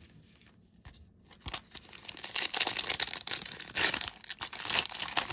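Foil wrapper of a Panini Diamond Kings baseball card pack being torn open and crinkled by hand. It starts about two seconds in, after a quiet opening.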